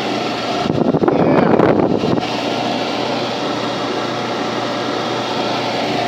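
Blower motor and squirrel-cage fan from a mid-to-late-1970s Maytag electric clothes dryer running at speed, a steady loud rush of air with a motor hum. About a second in it grows louder and rougher for about a second, then settles back to a steady run.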